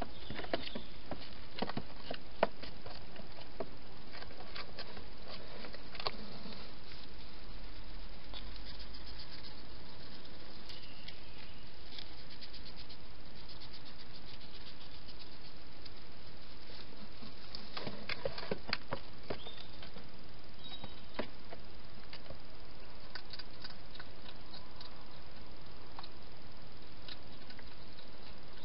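Wild hedgehog eating from bowls in a plastic feeding box: small, irregular crunching clicks in scattered clusters over a steady hiss.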